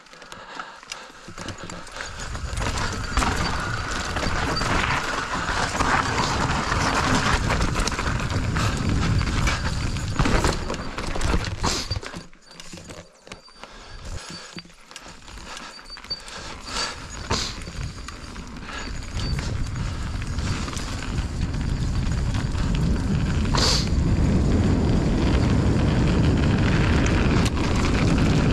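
Mountain bike riding down a rough dirt trail: tyres rolling over dirt and rock with the bike rattling and knocking over bumps, easing off for a few seconds in the middle. Wind rumbles on the microphone as speed builds over the last several seconds.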